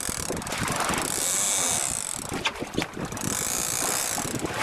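Big-game trolling reel being cranked hard against a hooked fish: rapid clicking from the reel's gears and ratchet, with two stretches of louder hissy rasping, about a second in and again near the end.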